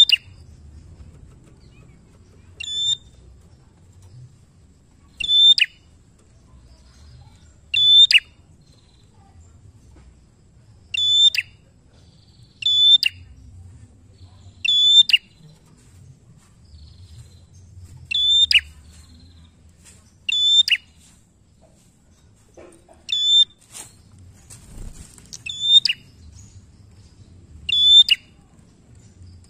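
Tailorbird calling: a short, sharp, high call repeated about a dozen times, one every two to three seconds, each ending with a quick drop in pitch.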